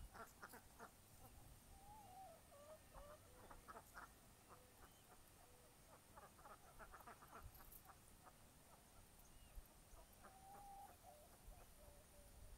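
Ducks and chickens calling faintly: scattered short quacks and clucks, with a drawn-out falling call about two seconds in and again near ten seconds.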